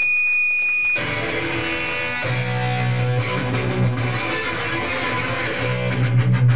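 Live rock band playing with electric guitar, bass guitar and drums. A single high note is held for about the first second, then the whole band comes in loud, with the bass guitar pounding in hard about two seconds in.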